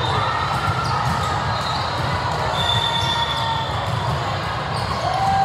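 Steady, echoing din of a large sports hall with several volleyball games going on: a hubbub of distant voices and play, with a few short high-pitched squeaks over it.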